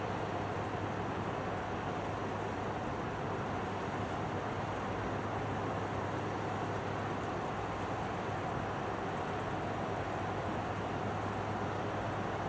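Container ship underway: a steady low drone under an even wash of noise that does not change.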